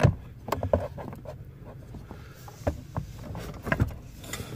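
A new blower motor being worked up into its housing under a car's dash: scattered light knocks, clicks and scrapes as it bumps against the housing and surrounding parts.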